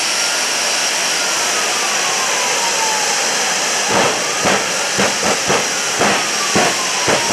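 Twin Rolls-Royce Bristol Viper jet engines of a jet-powered 1940 Ford fire truck running hard with a steady hiss and whine, the whine slowly rising and falling. From about four seconds in, a run of sharp, irregular pops comes as the afterburners throw bursts of flame from the stacks.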